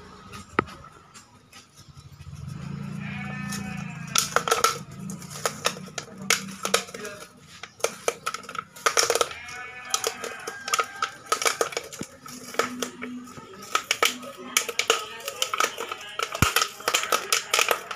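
Background music with a singing voice and a busy beat.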